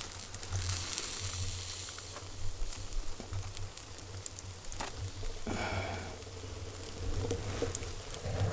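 Campfire crackling, with scattered sharp pops over a low steady rumble.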